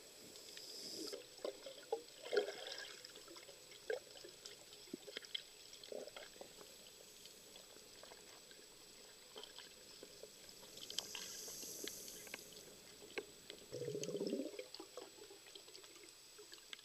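Faint underwater sound of a diver's breathing: a hiss on inhaling near the start and again about eleven seconds in, followed by a burble of exhaled bubbles, among scattered clicks and crackles.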